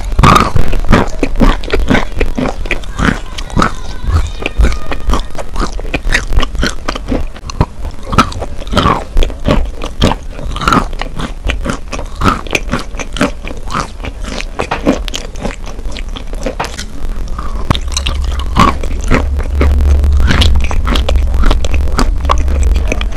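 Biting and chewing a soft, water-soaked chalk bar: a dense, irregular run of wet crunches, over a low hum that grows louder near the end.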